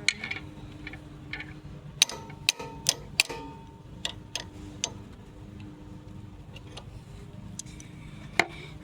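Irregular sharp clicks and taps, several in a cluster a couple of seconds in and one loud one near the end, over a faint steady hum: hands working at a plastic zip tie on a mini bike's kickstand, trying to break it off.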